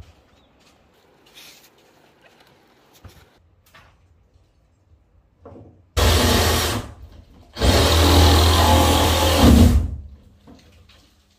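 Power drill running in two bursts: a short one of about a second, then a longer one of about two and a half seconds.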